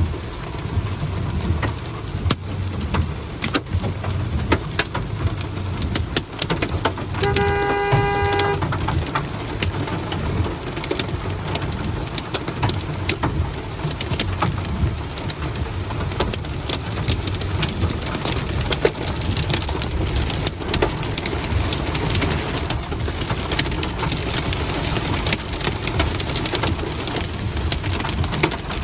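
Hail and rain pelting hard surfaces: a dense patter of sharp clicking impacts over a steady rush of rain. About seven seconds in, a steady pitched tone sounds for about a second.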